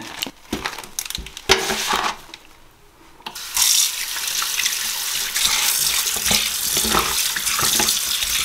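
A few knocks of handling, then about three seconds in a kitchen tap is turned on and water runs steadily into the sink to wash a freshly skinned raw chicken.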